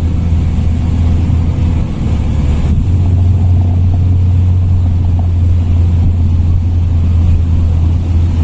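A boat's outboard motor running steadily with the boat under way, its low hum growing a little louder about three seconds in.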